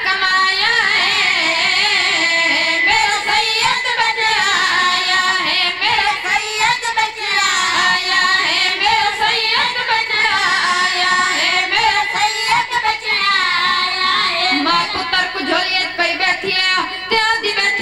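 Boys' voices singing a qasida, a devotional Urdu/Punjabi poem, in a melodic chant with vibrato through the microphones.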